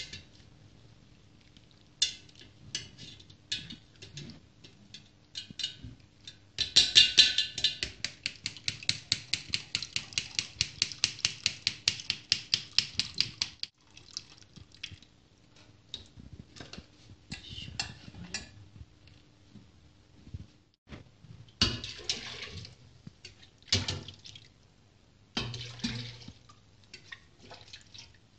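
A spoon works stew solids in a metal mesh sieve set on a stainless steel stockpot while the broth is strained. It scrapes and knocks fast and rhythmically, about four strokes a second for several seconds. Then come separate clanks of metal pots and a bowl, with broth dripping back into the pot.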